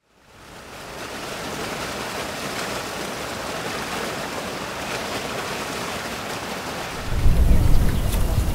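Steady hiss of rain fading in. About seven seconds in, a much louder low rumble sets in beneath it.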